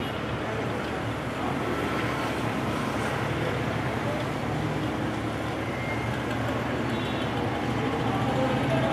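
Steady background rumble with a low hum and no distinct events.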